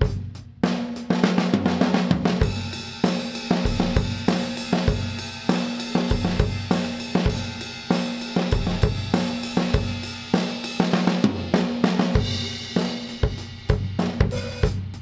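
Acoustic drum kit played with sticks in a steady groove: kick drum, snare, toms and hi-hat, with a wash of cymbals through most of it that briefly thins out a little after halfway. Recorded in mono through ribbon microphones with soft DBX 160 compression.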